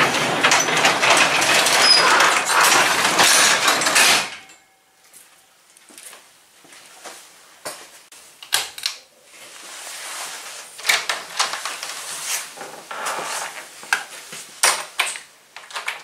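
Overhead sectional garage door pulled down by hand, its rollers running along the tracks for about four seconds until it shuts. Scattered knocks and clicks follow, with a quieter stretch of rattling later on.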